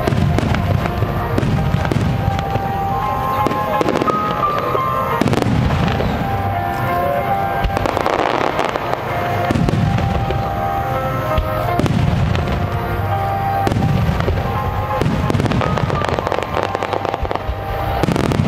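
Starmine fireworks going off in a rapid string: deep booms and sharp cracks every second or two, with music playing at the same time.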